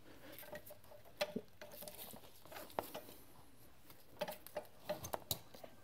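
A handful of faint, scattered clicks and light taps of a lifting strap being hooked onto a metal hook assembly by hand.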